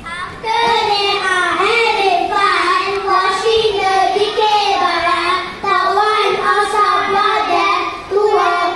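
A group of young children singing together, with two short breaks between phrases, about five and a half and eight seconds in.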